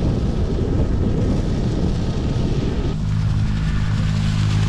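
Rushing wind noise on the microphone during a bike ride. About three seconds in, a steady low motor hum joins it.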